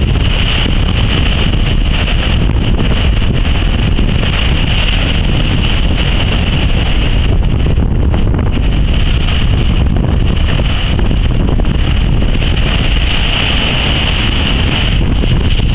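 Strong wind blasting the microphone over storm surf breaking on a concrete breakwater. The noise is loud and steady, with no single wave crash standing out.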